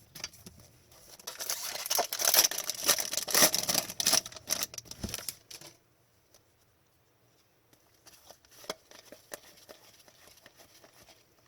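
A trading card pack wrapper being torn open and crinkled for a few seconds, then faint clicks and rustling as the cards are handled.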